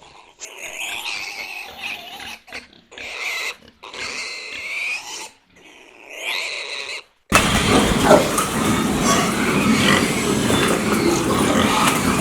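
A pig squealing in a series of about five separate high calls with short pauses between them. About seven seconds in, it cuts off abruptly and a loud, continuous noise starts.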